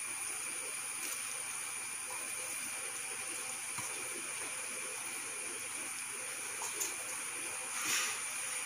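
Steady hiss under faint soft handling sounds of raw chicken pieces being turned in a dry flour and spice mix in a steel bowl, with a brief louder brushing sound near the end.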